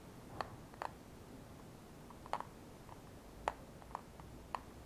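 Six or so sharp plastic clicks and taps, irregularly spaced, from the blue plastic casing and inner parts of a Powerball gyroscope being handled.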